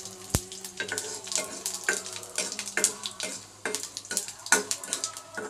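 Dried red chillies and spice seeds crackling and spluttering in hot oil in an iron kadai while being tempered, with a steel spoon stirring through them in the second half.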